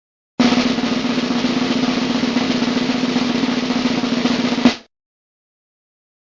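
Snare drum roll sound effect, a fast steady roll lasting about four seconds that ends in one louder hit.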